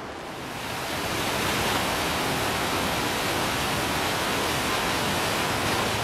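Mountain waterfall pouring down a rock face, heard close up: a steady, even rush of falling water that swells up in about the first second.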